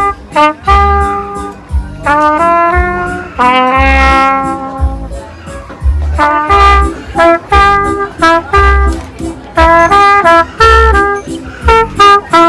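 Background music: a jazzy tune led by brass such as trumpet, playing quick melodic runs over a regular low beat.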